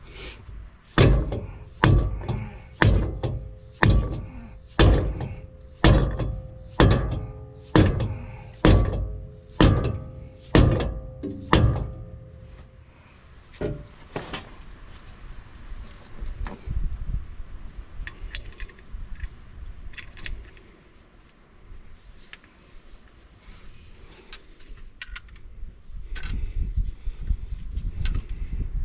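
A hammer striking steel about a dozen times, roughly once a second, each blow ringing, while the pinion preload of a differential is being set. Lighter scattered metal clinks of tools follow for the rest.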